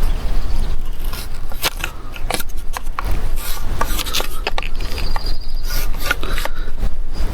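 A knife blade scraping and scoring across a PVC pipe in repeated, irregular short strokes as the pipe is cut by hand.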